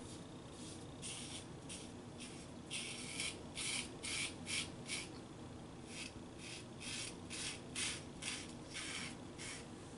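Straight razor scraping stubble through shaving lather in many short strokes, about two to three a second, starting about a second in: the first pass of a wet shave.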